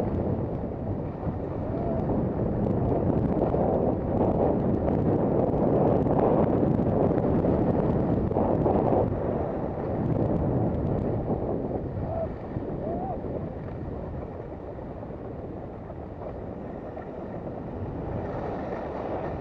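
Wind rushing over the microphone of a camera carried while skiing downhill, louder in the middle stretch and easing toward the end.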